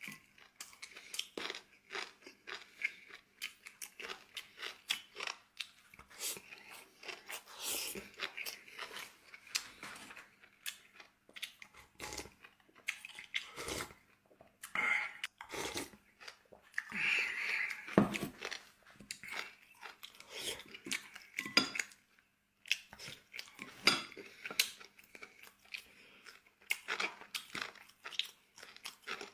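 Close-miked chewing and crunching of tomato-braised pork ribs and rice, with irregular clicks and taps of utensils against a dish.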